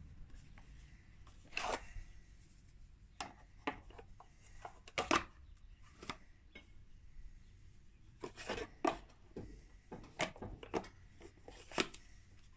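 Irregular clicks, taps and rubbing from mower parts and wiring being handled and fitted back together, with the sharpest knock about five seconds in.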